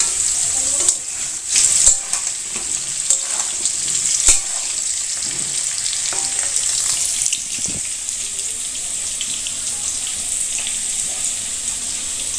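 Potato chunks frying in hot oil in a kadai on a gas stove: a steady sizzle, with a few sharp clicks in the first few seconds.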